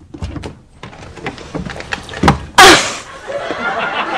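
A door being knocked on and banged, with a run of thuds and one loud slam about two and a half seconds in, followed by people laughing near the end.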